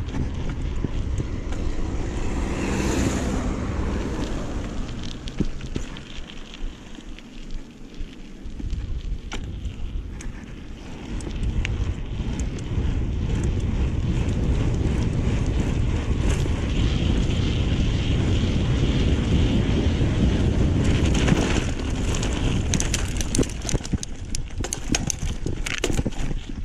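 Wind buffeting the camera microphone while riding a mountain bike on a dirt trail, easing for a few seconds partway through. Toward the end the bike clicks and rattles over rough ground.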